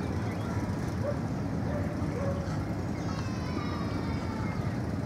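Passenger coaches running over a steel girder railway bridge: a steady low rumble of wheels on the rails, with a brief high-pitched squeal about three seconds in.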